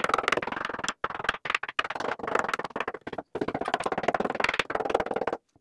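Hammer rapidly striking a rusty steel truck frame rail, knocking off rust scale: fast metallic blows in runs, with a few short pauses.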